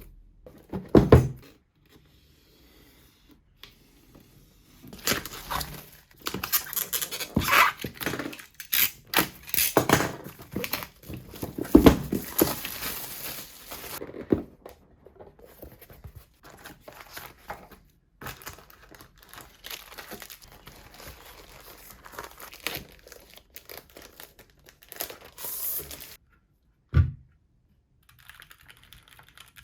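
Keyboard packaging being opened and handled: paper and plastic rustling, crinkling and tearing in irregular bursts, with a dull thunk about a second in and another near the end.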